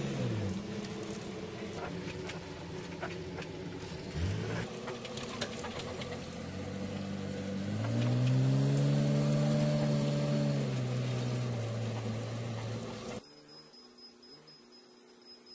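Dump truck's diesel engine heard from inside the cab while driving on a rough dirt track, played sped up, with cab rattles throughout. The engine's pitch drops twice early on, then rises about 7 seconds in and holds high for a couple of seconds before easing off. About 13 seconds in it cuts off abruptly to a faint hum.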